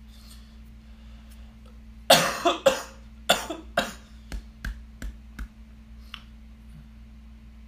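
A person coughing in a fit of several harsh coughs, the first ones loud and drawn out, the later ones shorter and weaker.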